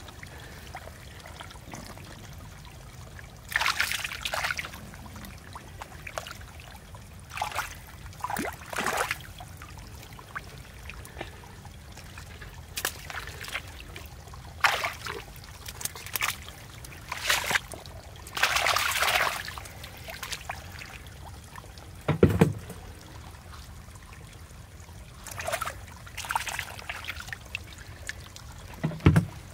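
Hands splashing and sloshing in shallow muddy water in irregular short bursts, groping through the mud for fish, with a dull thump about two-thirds of the way through.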